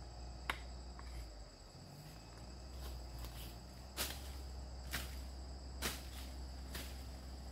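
Steady high chirring of insects such as crickets, with six sharp knocks or clicks spread through it, roughly one a second.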